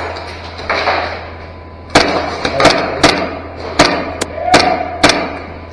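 Airsoft gun firing single shots: about eight sharp cracks over roughly three seconds, starting about two seconds in, with a short rustle of movement just before.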